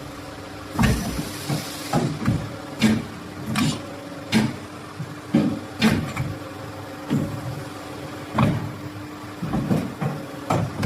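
CNC tube bending machine running: a steady motor hum with repeated irregular clunks and knocks as it works.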